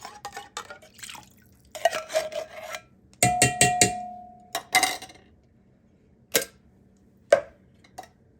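A metal spoon scraping and clinking inside a tin can, scraping out the last of the cream of chicken soup. About three seconds in comes a loud rapid rattle with a steady ring, then a few separate knocks.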